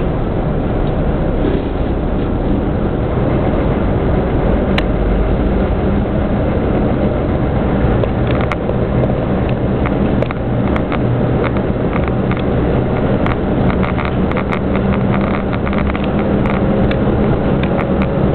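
ČD class 810 diesel railcar under way, heard through the carriage window: the underfloor diesel engine drones steadily under load, and from about eight seconds in sharp clicks and clatter from the running gear grow more frequent as the railcar picks up speed.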